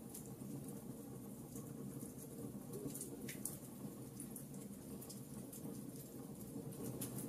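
Wood fire burning in a fireplace: irregular sharp crackles and small pops over a steady low sound of the flames, with one longer crackle falling in pitch about three seconds in.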